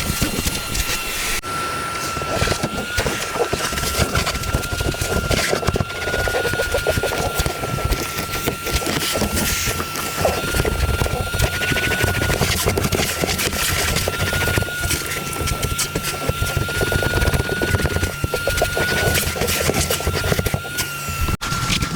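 Small electric motor running steadily with a high whine that wavers slightly in pitch.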